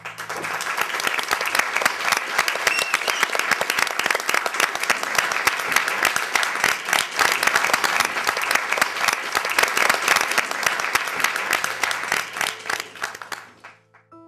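Audience applauding: dense clapping that starts all at once and dies away near the end.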